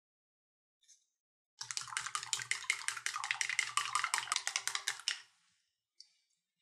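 Eggs being beaten in a bowl for the rolled omelette: a rapid, even run of clicking strokes, about seven a second, starting about a second and a half in and lasting some three and a half seconds.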